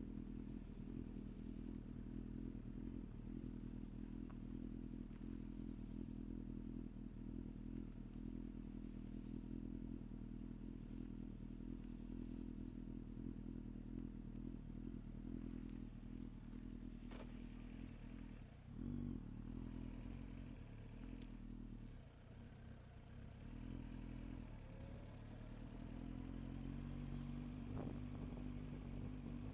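A vehicle engine running steadily at low pitch, speeding up slightly near the end.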